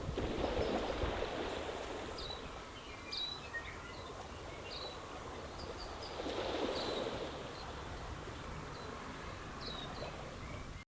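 Small waves washing over a stony beach, swelling about a second in and again around six seconds, with birds giving short, repeated chirps over the top. The sound cuts off abruptly just before the end.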